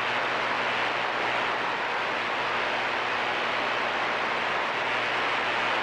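CB radio receiver hissing with steady static between transmissions, open squelch, with a low steady hum underneath.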